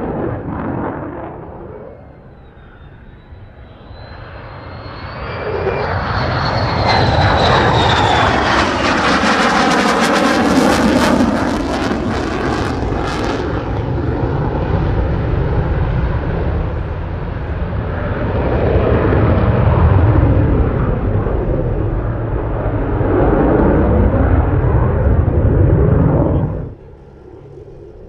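F-35A fighter jet's afterburning turbofan engine roaring through a low pass. A high whine rises and then falls as the jet comes in, and a loud crackling roar follows as it passes in afterburner. The roar stays loud and then cuts off abruptly near the end.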